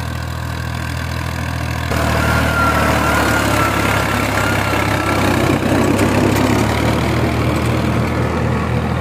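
Tractor engine running steadily, getting louder about two seconds in, with a wavering high tone over it for a few seconds.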